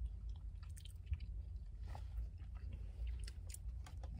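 A person biting and chewing a soft sugar-dusted donut close to the microphone, with scattered small clicks, over a steady low hum inside a car.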